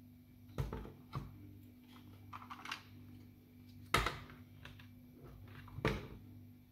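Hard plastic parts of a Nerf Rival Roundhouse blaster knocking and clicking as they are handled and fitted together, in irregular taps with the loudest knocks about four seconds in and again near six seconds. A steady low hum runs underneath.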